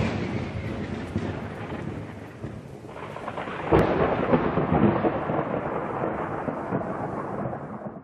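Thunder sound effect: a rolling peal fading away, then a second sharp crack about four seconds in that rumbles and fades before cutting off suddenly.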